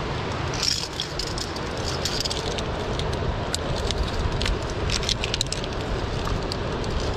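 Wind rumbling on the microphone, with frequent light clicks and scrapes from via ferrata gear: carabiners and lanyard against the steel cable and rungs as the climber moves.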